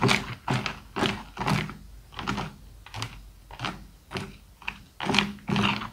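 Thick wet slime being stirred and pressed with a plastic scraper in a metal tray: a run of sticky squelching clicks, about two a second, softer in the middle and stronger again near the end.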